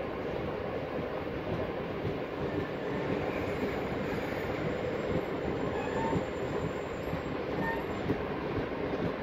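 Passenger train coaches rolling out of a station, heard from an open coach doorway: a steady rumble of wheels on the rails, with a few brief faint wheel squeals in the middle.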